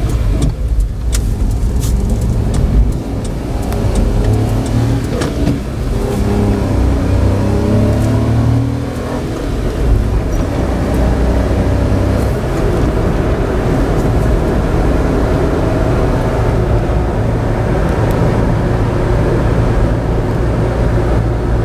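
Suzuki Carry kei truck's 660 cc naturally aspirated inline three-cylinder engine heard from inside the cab while driving: the engine note rises as the truck accelerates through the gears of its manual gearbox, with a knock about ten seconds in. It then settles into a steady drone with road noise for the second half.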